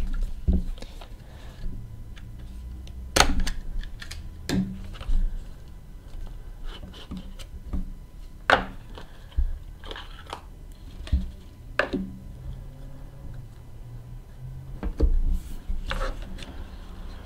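Cardboard trading-card box being opened and handled: scattered sharp taps, clicks and scrapes of cardboard as the box comes out of its sleeve and the lid comes off, over a faint low hum.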